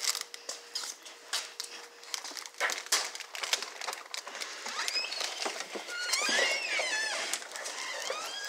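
Excited puppies whining and yelping in high, wavering squeals from about five seconds in, over scuffling, scratching and clicking.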